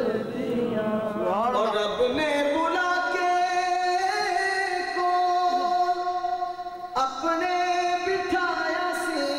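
A man singing an Urdu devotional song solo into a microphone, with long held notes and sliding, ornamented pitch. A brief sharp click about seven seconds in.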